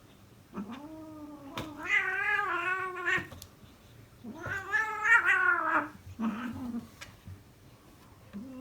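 A domestic cat yowling: two long, drawn-out calls that waver in pitch, then a short call, and another beginning near the end.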